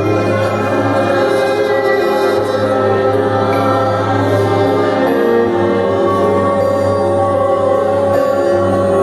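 Slow worship music of long held chords over a low sustained drone, with choir-like voices.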